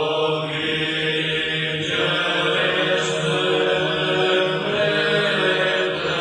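Male choir of Orthodox monks singing Byzantine chant in Albanian: a slow, held melody over a steady low drone note (ison).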